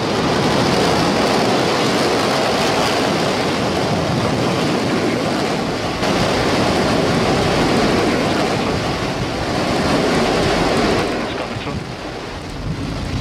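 Steady, loud rushing roar of the single Raptor methane engine firing on SpaceX's Starship SN5 prototype in flight, easing off briefly near the end.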